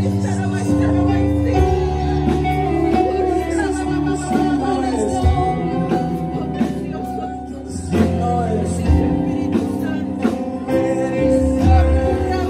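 Live worship band playing, with several voices singing through microphones over electric bass guitar and drums.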